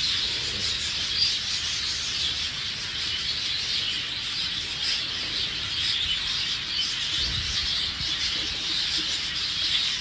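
Many budgerigars chattering together in a continuous, dense stream of small chirps and warbles.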